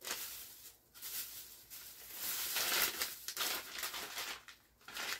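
Plastic snack bags crinkling as they are handled and shuffled, in irregular bursts, loudest from about two to three and a half seconds in.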